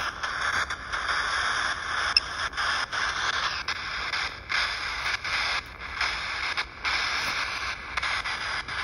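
Electronic static hiss from a ghost-detector app on a phone, cut by frequent brief dropouts.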